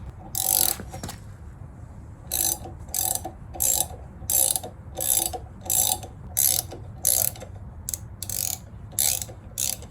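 Hand ratchet clicking in short back-and-forth strokes, about two a second after a pause, as it turns the centre bolt of a harmonic balancer puller to draw the balancer off a Jeep 4.0L inline-six.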